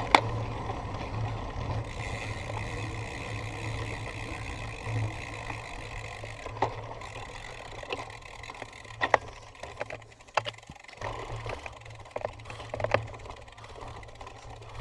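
Cyclocross bike ridden over rough ground: a steady rumble with scattered sharp knocks and rattles, the loudest right at the start and a cluster more from about nine to thirteen seconds in.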